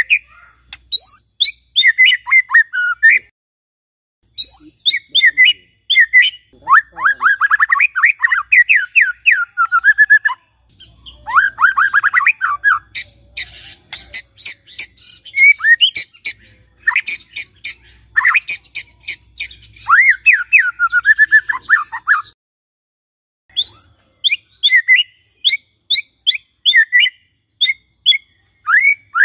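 Male white-rumped shama (murai batu) singing: bursts of rapid whistled notes and quick downward sweeps, with a run of sharp clicking notes about halfway through and two brief pauses.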